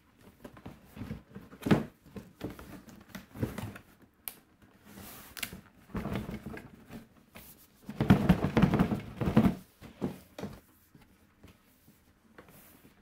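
Handling noises as a radio-controlled stadium truck is unpacked from its box: irregular rustling and knocks of packaging, busiest about eight to nine and a half seconds in.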